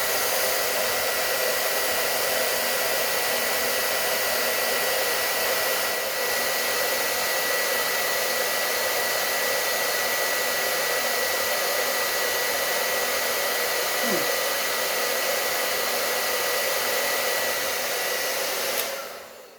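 Hand-held hair dryer blowing steadily, with a thin steady whine over the rush of air; it is switched off near the end and the sound dies away.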